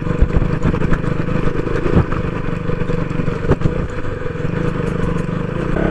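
Single-cylinder KTM Duke motorcycle engine running steadily at low revs as the bike rides over a rough, rocky dirt track, with a few sharp knocks as it jolts over stones.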